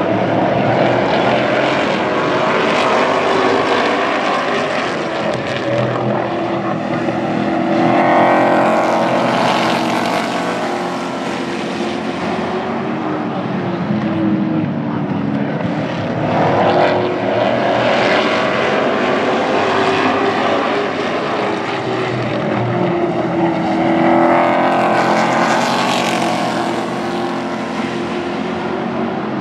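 A field of Supertruck race trucks running at racing speed around the oval, their engines blending into one steady drone. It grows louder three times as the pack comes past.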